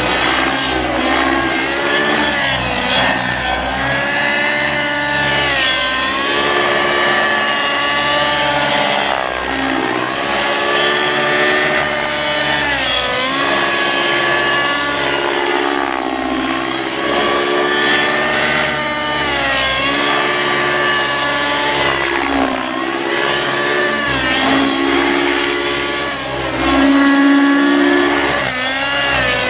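Aeolus 50 nitro RC helicopter in flight: its glow engine and rotor whine rise and fall in pitch again and again as it is thrown through aerobatic manoeuvres.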